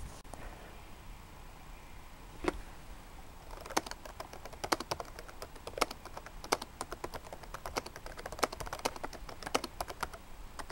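Touch-typing on a laptop keyboard. A single keystroke comes about two and a half seconds in, then from about three and a half seconds a quick, uneven run of key clicks.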